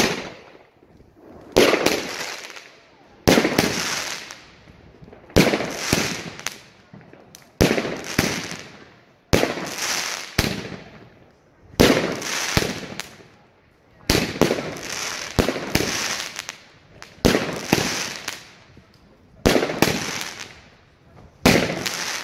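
Weco 'Power Up' 20-shot fireworks battery firing its shots one after another, about one every two seconds. Each shot is a sharp report followed by a fading noise of about a second.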